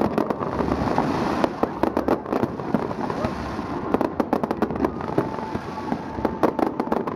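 Fireworks display: a dense, irregular run of sharp bangs and crackles, many overlapping, over background voices.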